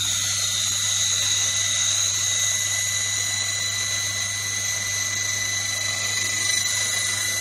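Handheld laser cleaning head firing on a rusty steel plate, ablating the rust: a steady hiss with a high-pitched whine, starting abruptly as the laser switches on. A low machine hum runs underneath.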